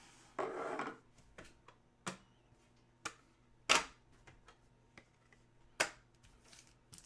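Hockey trading cards and their packaging being handled: a brief rustle about half a second in, then a few sharp clicks and snaps spaced a second or so apart, with fainter ticks between.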